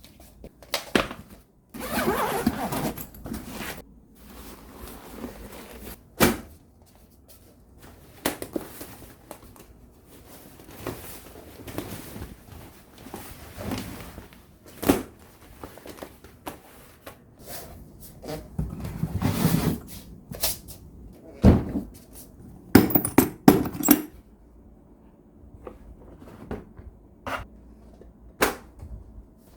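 Hand tools being handled and set down on a hard surface in a small room: irregular thunks and knocks with short stretches of rustling, and a quick run of several loud clacks about three quarters of the way through.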